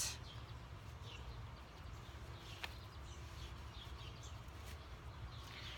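Quiet outdoor ambience: a steady low rumble with a few faint bird chirps now and then, and one light click about two and a half seconds in.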